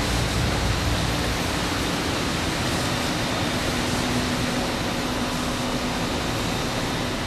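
Steady rushing background noise, an even hiss with a faint low hum, with more low rumble in the first two seconds.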